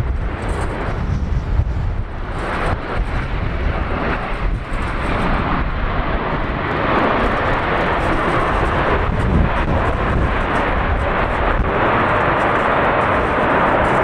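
Jet engines of a landing Boeing 747-8F (four GEnx turbofans) roaring during touchdown and roll-out. The roar grows louder and steadier from about seven seconds in. Strong gusty wind buffets the microphone, mostly in the first half.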